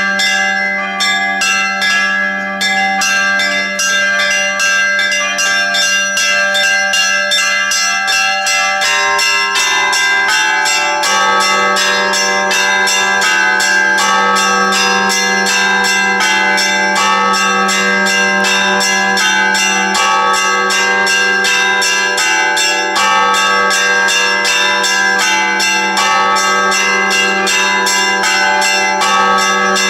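Church bells ringing: several bells of different pitch struck in a quick, even rhythm, over the steady hum of a deep bell.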